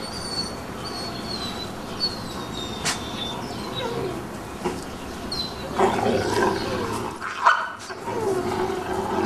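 Wolf pups whining and yelping in rough social play with an adult wolf. There is a cluster of short wavering whines about six seconds in and a falling whine near the end.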